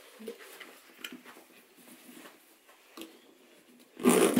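Rustling and small clicks of a full-face respirator with twin filter cartridges being pulled over the head and its straps adjusted, against the rustle of a disposable coverall. Near the end comes a short, loud rush of noise.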